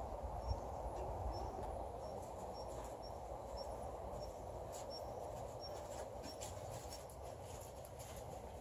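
Outdoor ambience: a steady background hiss with a faint high chirp repeating about twice a second. From about halfway in come soft clicks as a saddled horse walks on the sand footing of the pen.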